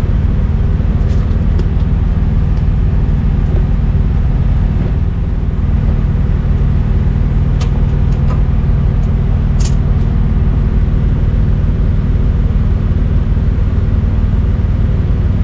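A steady low rumble with a constant machine hum, as of an engine or motor running nearby, and a few faint light clicks of a tool on metal.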